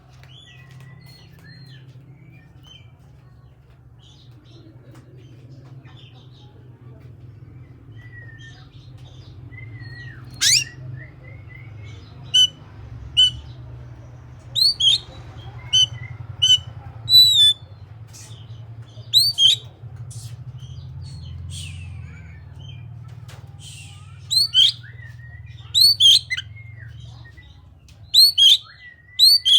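Oriental magpie-robin (kacer) singing: faint scattered whistles at first, then from about a third of the way in, loud, sharp, short notes and chirps repeated in quick phrases. A steady low hum runs underneath.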